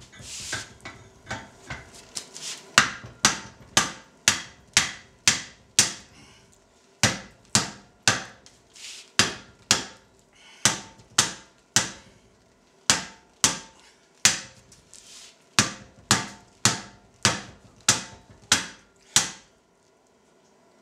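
Hand hammer striking a red-hot steel eye on a cone mandrel in the anvil's hardy hole, stretching the ring open: sharp ringing metal-on-metal blows at about two a second, in runs of five to eight with short pauses between. The blows stop shortly before the end.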